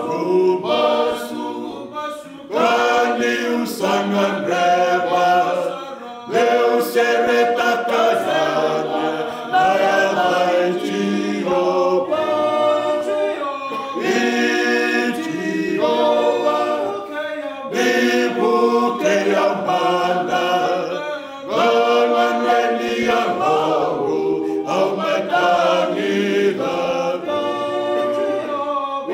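A group of men singing a Fijian hymn a cappella, several voices together in phrases a few seconds long with short breaks between them.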